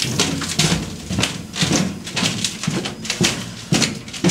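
Footsteps of people walking along the floor of an electric locomotive's narrow machine-room corridor, about two steps a second.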